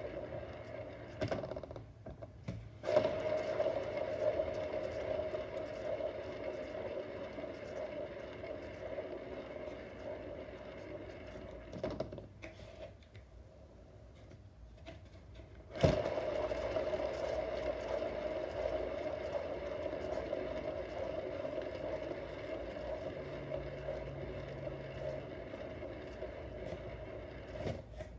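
Cake-decorating turntable (lazy Susan) spun by hand, its bearing whirring steadily. A sharp knock as it is pushed about three seconds in sets it whirring, which fades, then after a lull a second push about sixteen seconds in starts the whir again, slowly dying away.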